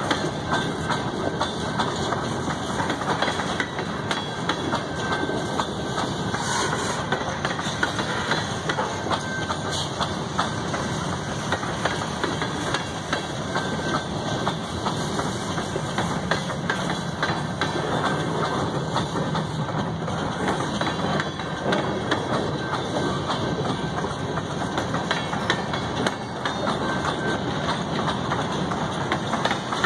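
Freight cars (covered hoppers and boxcars) rolling past at close range. Their steel wheels make a steady rumble on the rail with continuous dense clatter and clicking.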